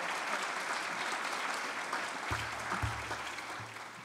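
Audience applauding, the clapping slowly dying down toward the end.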